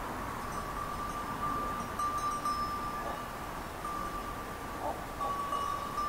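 Sheep bells on a feeding flock ringing almost without a break: a steady metallic ringing with small clinks over it.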